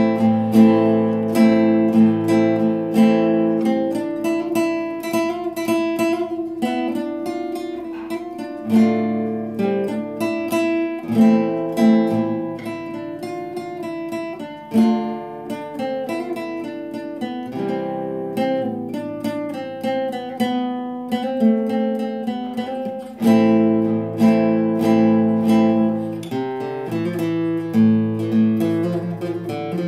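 Solo nylon-string classical guitar played with the fingers: a Turkish folk melody picked out in a quick run of single notes over changing bass notes.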